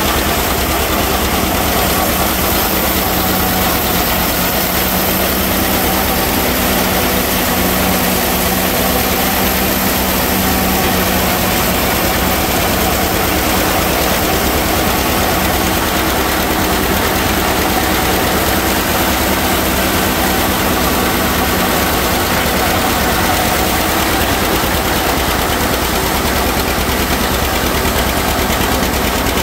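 John Deere 60 two-cylinder tractor engine running under load while it pulls a PTO-driven one-row forage chopper through standing corn. The engine and chopper make a steady, unbroken mechanical din.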